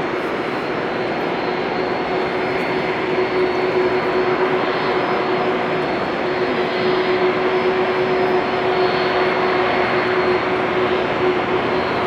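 Passenger jet airliner's engines running: a steady rushing noise with a steady low hum and a faint high whine, a little louder from about three seconds in.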